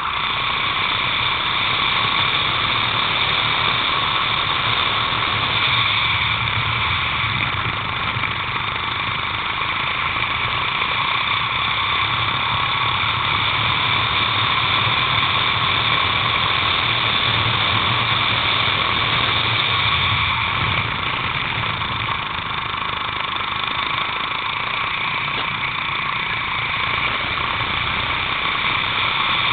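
Racing kart engine running hard and steadily under power, heard up close from a camera mounted on the kart.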